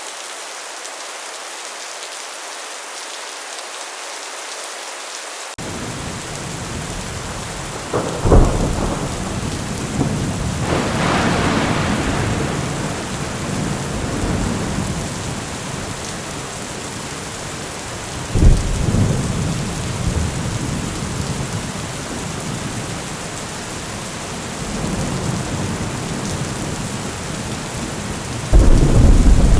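Intense rainstorm on a metal roof: steady heavy rain with several loud thunderclaps and one longer rolling rumble. A deep low rumble sets in suddenly about five seconds in, and the last clap comes near the end.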